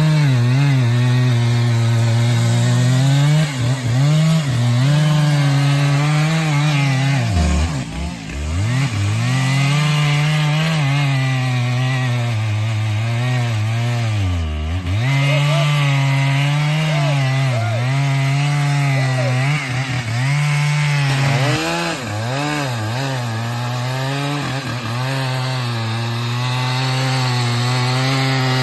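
Chainsaw running at high revs while cutting through a log, its pitch wavering as the chain loads up in the wood, and dropping sharply twice, about eight and fifteen seconds in, before climbing back.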